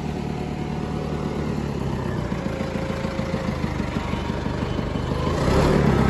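John Deere 555 crawler loader's diesel engine running steadily just after catching, having sat unused for many years. It grows louder about five seconds in.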